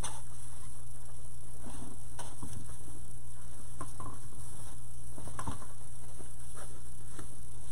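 Fabric ribbon rustling and crinkling in short, scattered bursts as it is folded into loops on a wooden bow maker, over a steady electrical hum.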